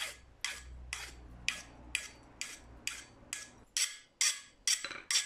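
Steel hand file stroked back and forth across steel test bars, about two strokes a second. At first the file bites and rasps into the soft mild steel. From about four seconds in the strokes turn louder and brighter as the file skates over the quenched C70 steel, which is as hard as the file: the sign that the quench has hardened it.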